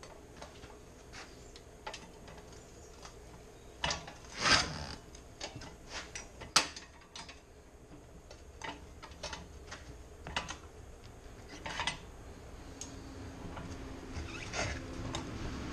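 Irregular metal clanks and knocks from a manual tire bead breaker being worked against a mower tire and rim, with two louder knocks about four and a half and six and a half seconds in.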